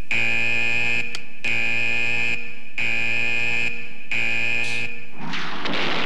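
Laboratory warning buzzer sounding a harsh, high, steady-pitched buzz in pulses of about a second with short gaps between them. About five seconds in, the buzzing gives way to a loud rushing blast as the vertical gas gun fires.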